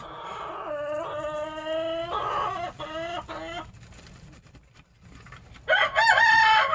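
Backyard chickens clucking and calling: a long held note, then a few short clucks, and near the end a louder, longer call. In the pause between the calls, a faint dry rattle of sawdust bedding sifting through a plastic slotted litter scoop as it is shaken.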